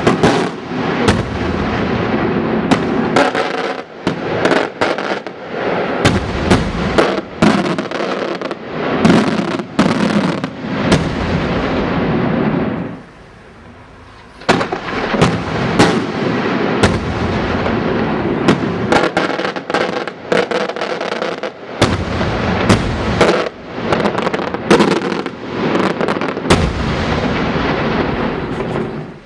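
A fireworks barrage: rapid overlapping bangs and cracks over a continuous crackling roar, breaking off about 13 seconds in for a second or two before starting again just as densely.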